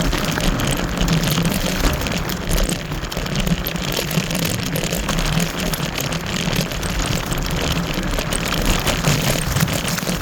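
Wind buffeting the microphone and tyre rumble as a Kaabo Wolf Warrior electric scooter rides along a trail: a steady, loud, noisy rush with a heavy low rumble.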